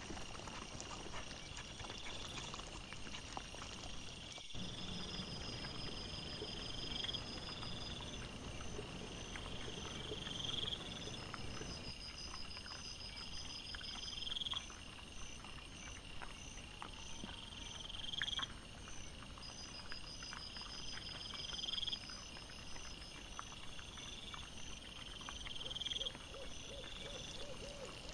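Night forest sound: a buzzing call rises and ends about every four seconds, with short trains of high pulses between. Under it are scattered clicks and rustling from wild boar rooting in the leaf litter, busier in the first half.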